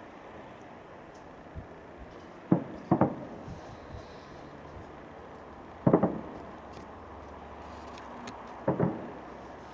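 Fireworks shells bursting overhead: sharp booms coming in quick clusters of two or three, about two and a half, three, six and nine seconds in, each trailing off in a short echo.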